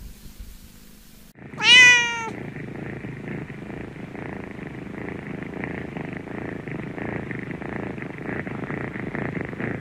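A cat gives one loud, short meow about a second and a half in, then purrs steadily.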